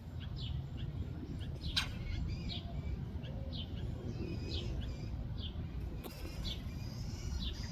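Songbirds chirping: many short, high, downward-sliding notes, roughly two a second, over a steady low rumble, with one sharp click about two seconds in.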